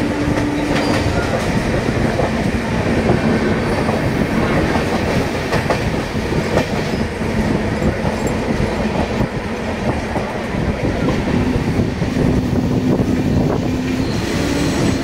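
Passenger train running along the track, heard from an open coach doorway: a steady rumble of wheels on rails with scattered clicks as the wheels cross the rail joints.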